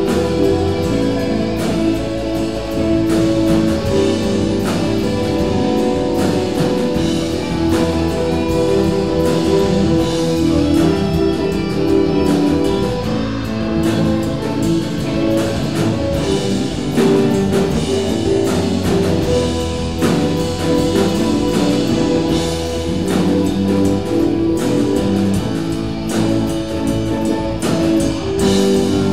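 Live rock band playing an improvised instrumental jam: electric guitars, bass guitar, keyboard and drum kit, continuous and loud.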